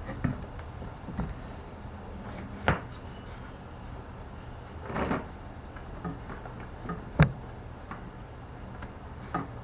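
Scattered knocks and brief scrapes as a wire is pushed and fished down through a hole in wood that is too small for it; the loudest knock comes about seven seconds in.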